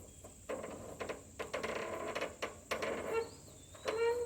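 Blade-tension screw on a Frontier OS31 sawmill being tightened by hand until it bottoms out: a run of clicks and metallic scraping, with two short squeaks near the end.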